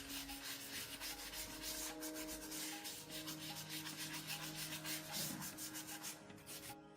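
Rapid back-and-forth rubbing strokes on a surface, with soft background music underneath; the strokes become fewer and more spaced out near the end.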